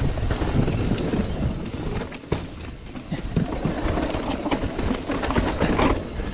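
Mountain bike ridden fast down a rough downhill trail: tyres rumbling over rock and dirt, with the bike rattling and clattering over the bumps in a steady run of knocks.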